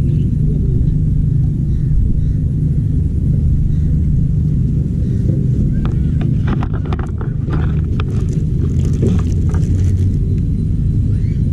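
Steady low rumble with a scattered run of clicks and rattles in the middle.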